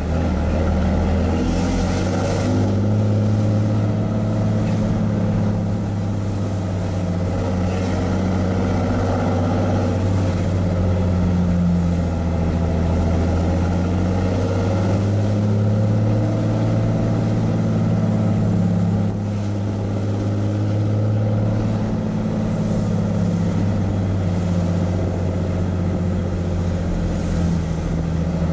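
A straight-piped 6.7L Cummins turbo-diesel inline-six with a 5-inch side-exit exhaust, pulling the truck uphill with a steady, loud drone. The engine note rises and falls a little with the throttle, and dips briefly about two-thirds of the way through. Heard from inside the cab.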